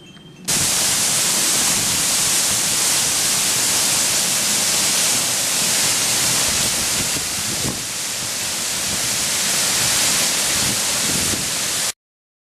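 Chōshigataki waterfall: a steady rush of falling water that cuts in abruptly about half a second in and stops suddenly near the end.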